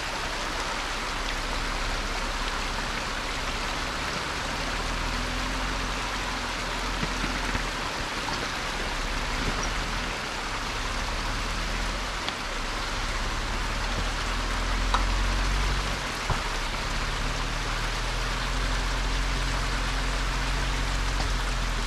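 Jeep crawling slowly along a slippery dirt trail: its engine runs low and steady beneath a continuous hiss of noise, a little louder for a couple of seconds in the second half.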